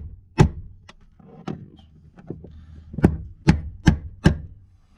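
Several sharp knocks as the fuel pump assembly is struck to drive it fully into place, the last four in quick succession near the end.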